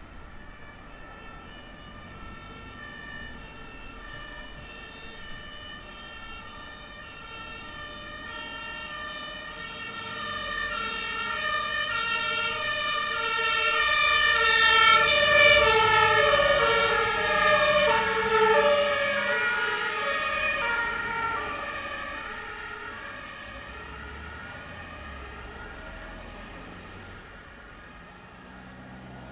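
Emergency vehicle siren sounding a two-tone hi-lo wail over a low traffic rumble. It grows louder from about a third of the way in, is loudest around halfway, then fades away as the vehicle passes.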